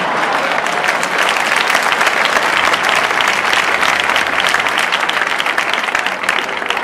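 Live studio audience applauding, a dense, steady patter of many hands clapping.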